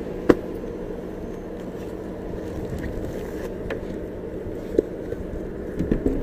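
Steady hum of an idling vehicle, with a sharp click just after the start and a few lighter knocks later from items being handled in a search.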